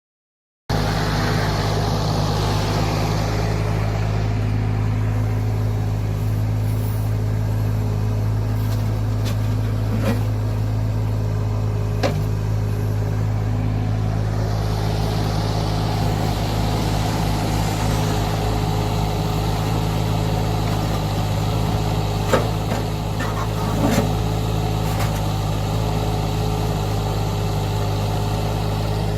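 Taerim LEX-T18 mini loader's engine running steadily, with a few short knocks and clanks as the clamp attachment works.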